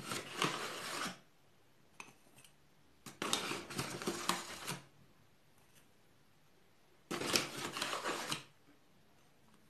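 Flour being sifted through a plastic sieve: three spells of dry, scratchy rustling, each a second or more long, with quiet between.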